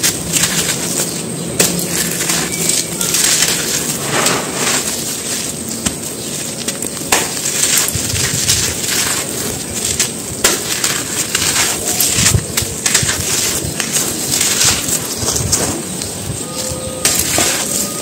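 Dry, dusty dirt chunks crushed and crumbled between gloved hands, with a continuous gritty crunching and crackling as the lumps break and the crumbs fall back onto loose dirt.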